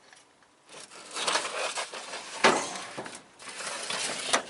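Old hand tools being handled and shuffled about in a tool chest drawer: an uneven rattling, scraping clatter with a sharper knock about two and a half seconds in.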